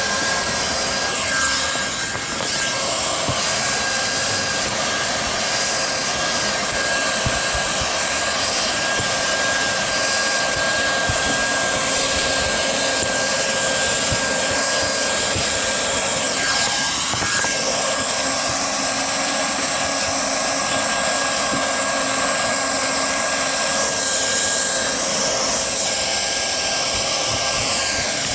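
Handheld hot-air plastic welder running steadily, its blower giving a constant hiss with a steady whistle tone, as it heat-welds roofing membrane flashing around a roof curb.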